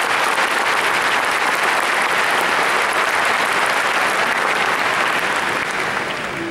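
Large crowd applauding, a dense steady clapping that dies away near the end.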